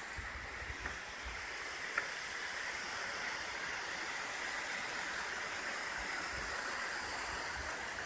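Steady rush of a waterfall heard at a distance, an even hiss of falling water, with a small click about two seconds in.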